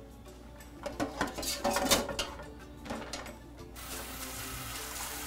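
Clinks and scrapes of a strainer against a mixing bowl as canned tuna is pressed dry. About four seconds in, a kitchen tap starts running into the sink with a steady hiss.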